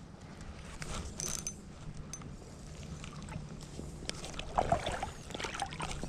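Creek current flowing and lapping around the legs of a wading person, with a steady low hum underneath and scattered faint clicks.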